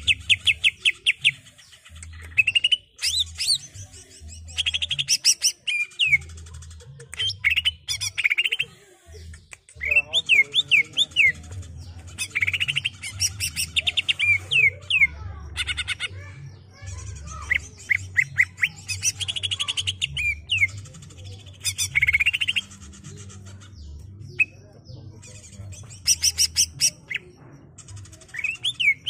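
Male greater green leafbird (cucak ijo) singing in a continuous rolling song: repeated bursts of rapid trilled chatter mixed with quick sweeping whistles. Each burst lasts a second or two, with short pauses between.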